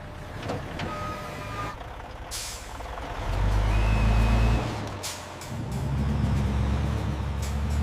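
A heavy truck's engine running and swelling in two loud stretches as it is manoeuvred into place, with a short hiss of air brakes and a couple of brief beeps.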